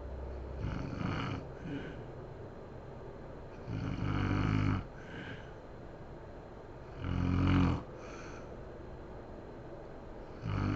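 A sleeping woman snoring loudly in a regular rhythm, one buzzing snore about every three seconds with a softer breath after each. The first snore is weaker, and another begins just at the end.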